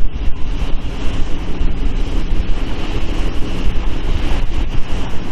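Strong wind buffeting the microphone, a loud gusty rumble over the rush of choppy, wind-driven water.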